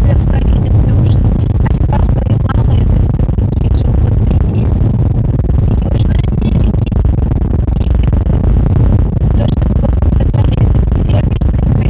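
Car interior road and engine noise while driving at steady speed: a constant low rumble with light ticks and rattles over it.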